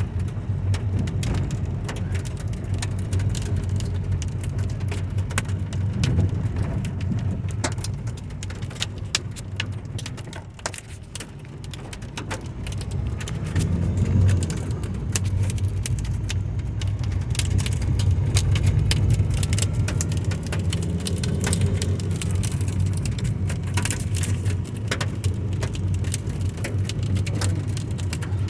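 A shower of small volcanic stones (lapilli) from Etna falling like hail: dense sharp ticks of impacts over a steady low rumble, thinning briefly about ten seconds in before picking up again.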